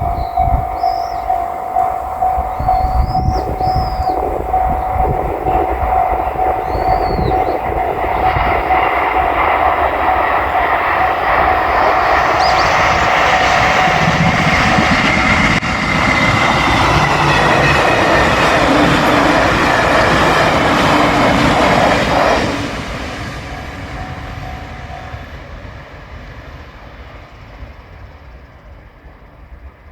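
A JR Shikoku 8000 series limited express electric train passes close by at a level crossing. Its rushing wheel and running noise is loudest in the middle and cuts off sharply about 22 seconds in, then fades away. The crossing's warning bell rings steadily through the first half and fades out after the train has passed.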